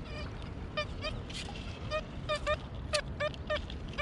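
XP Deus 2 metal detector on program 3 with polyphonic audio, giving a string of short, varying beeps, some bending in pitch, as the coil sweeps over a cluster of buried targets.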